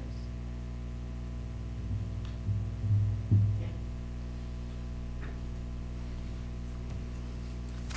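Steady electrical mains hum on the room's recording, with a few faint ticks and brief low sounds between about two and three and a half seconds in.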